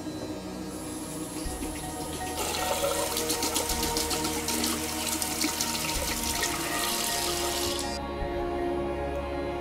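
Water tap running into a sink. It starts about two and a half seconds in and stops suddenly near the end, with background music underneath.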